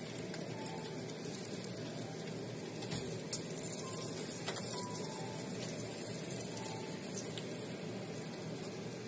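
Fish frying in hot oil, a steady sizzle, with a sharp click a little over three seconds in.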